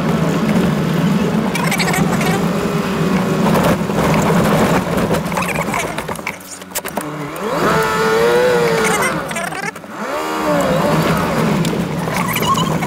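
Toyota Land Cruiser driving along a rough gravel track, heard from inside the cabin: a steady engine drone under tyre and rattle noise. In the middle the low drone drops away for a few seconds while a wavering pitched tone rises and falls.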